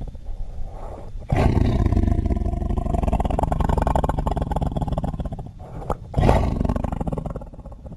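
Smilodon (sabre-toothed cat) sound effect: a low rasping growl, then a long loud roar beginning just over a second in. A second, shorter roar follows about six seconds in.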